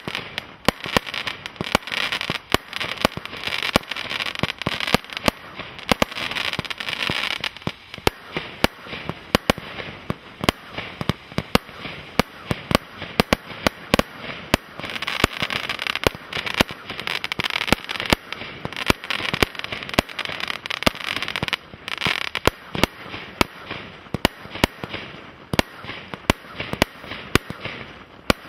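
Celtic Fireworks 'The Tardis', a 126-shot single-ignition firework cake, firing continuously: sharp bangs several times a second, with stretches of crackling from the bursting effects.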